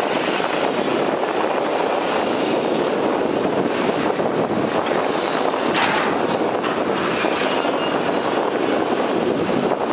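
Volvo EC480DL excavator's diesel engine and hydraulics running steadily under load as it swings a full bucket and empties soil and rocks into a dump truck's steel bed. One sharp clank about six seconds in.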